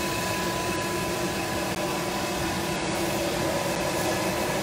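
Steady drone of airport machinery: an even rushing noise with a thin, steady whine running through it, and low rumble on the microphone.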